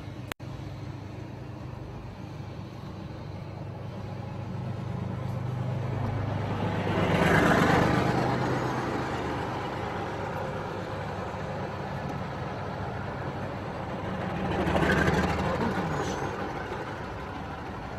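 Tracked armoured vehicles, a main battle tank and then an infantry fighting vehicle, passing close to a moving car, heard from inside the car's cabin over a steady engine hum. The sound swells twice as each vehicle goes by, about seven and a half and fifteen seconds in.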